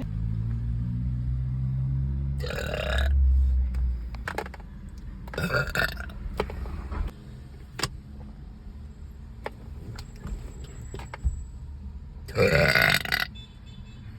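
Girls burping: three loud burps, about two and a half seconds in, about five and a half seconds in, and the longest near the end. A low rumble runs beneath them.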